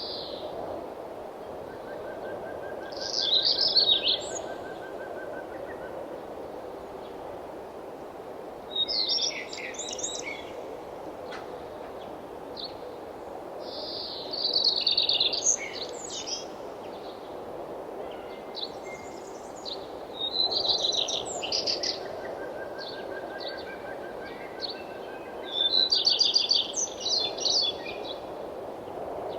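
Songbird singing rapid, twittering high phrases, five of them about five to six seconds apart, with a fainter, lower pulsed trill twice in between. A steady hush of wind runs underneath.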